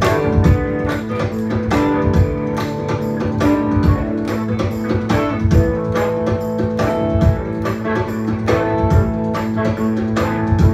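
Live Tuareg desert-blues band playing: guitars over a steady drum beat.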